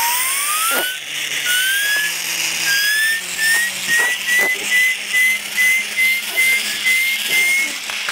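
Blow-powered Tornado toy cars being charged by blowing into their turbo, which whistles. The whistle climbs in pitch over the first couple of seconds, then settles into short, even whistling puffs about three a second, with the hiss of breath behind it.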